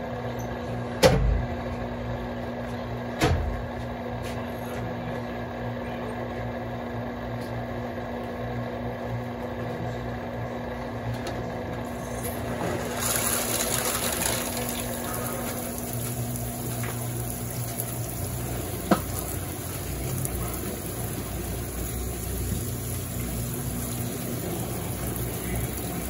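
Consul CWS12 washing machine running with a steady hum and two knocks in the first few seconds; about halfway in, water starts to rush into the drum with a steady hiss that keeps going, and there is one sharp click later on.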